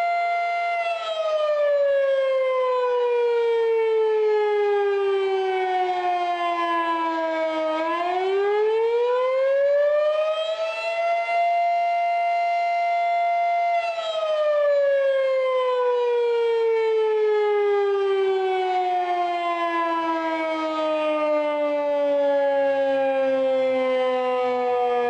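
Mechanical outdoor warning siren sounding: a steady high tone that winds down in pitch, climbs back up about eight seconds in, holds, then winds slowly down again.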